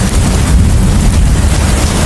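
Heavy rain and wind: a steady, dense hiss over a deep low rumble, with no separate strikes.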